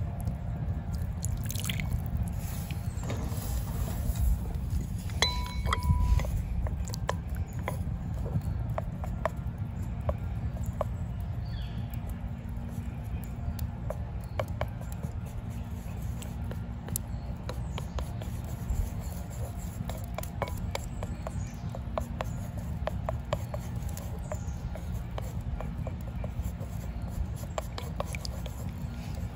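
Broth poured from a saucepan into a ceramic bowl near the start, then wooden chopsticks stirring miso paste into the broth, with light repeated clicks against the bowl. A steady low rumble runs underneath.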